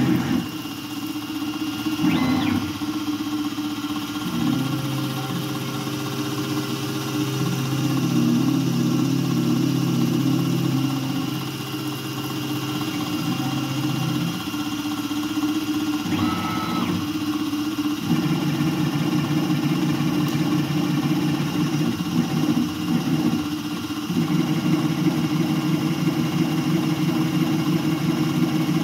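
Langmuir Systems MR-1 CNC mill cutting an aluminum part with an end mill under flood coolant. A steady high spindle whine runs under the humming drive motors, whose tones jump to a new pitch every few seconds as the toolpath changes speed and direction. There is a short sharp change about two seconds in and again near the middle.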